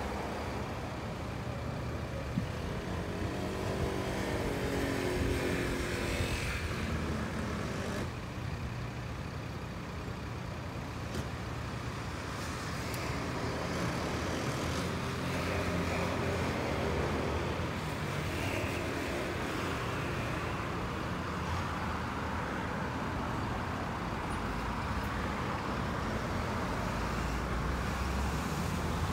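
Road traffic: car, van and lorry engines idling in a queue, with a steady low rumble. An engine note rises as a vehicle revs and pulls away a few seconds in, and again midway.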